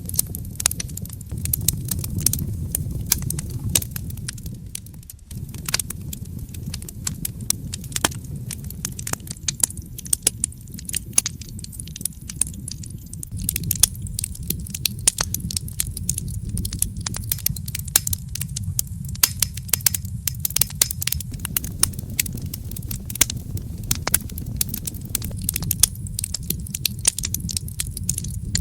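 Wood fire burning in a fireplace, with frequent sharp crackles and pops over a low steady rumble. The sound dips briefly about five seconds in.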